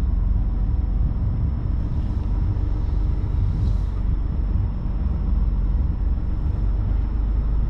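Semi-truck's diesel engine running with a steady low rumble, heard from inside the cab.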